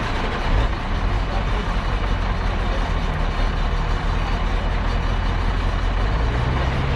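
Heavy vehicle engine running steadily, its low hum growing stronger about half a second in and shifting up in pitch near the end.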